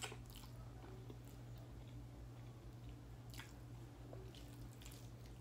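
A person slurping spicy fire chicken noodles right at the start, then chewing softly with a few faint sharp mouth clicks. A steady low hum runs underneath.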